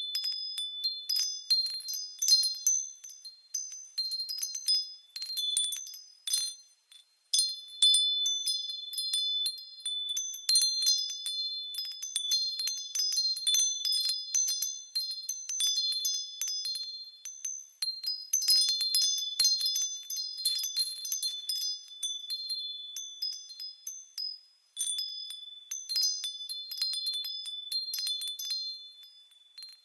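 Wind chimes ringing, with many irregular high, crisp strikes overlapping into a continuous shimmer. There are two brief lulls, about seven seconds in and again near twenty-five seconds.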